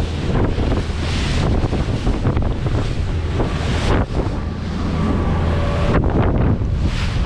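Wind buffeting the microphone in gusts over the rush of spray and choppy waves along the hull of a Stabicraft 2050 Supercab aluminium boat running through rough water.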